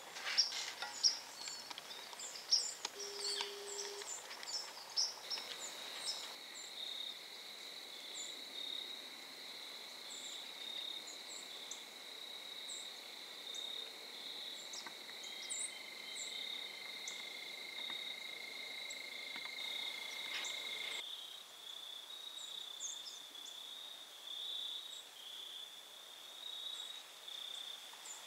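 Steady, high-pitched insect trill, typical of crickets, running on without a break. In the first few seconds there are many short high bird chirps and a few sharp rustles.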